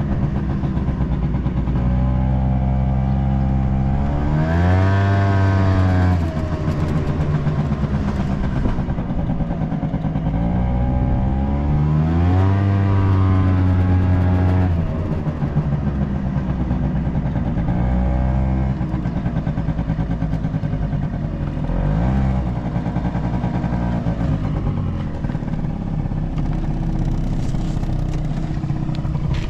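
Honda Cabina 50 scooter's 49 cc two-stroke single-cylinder engine running, revving up several times and dropping back to a steady lower speed in between. It revs up freely with no abnormal noise, which the seller gives as the sign of an engine in good running order.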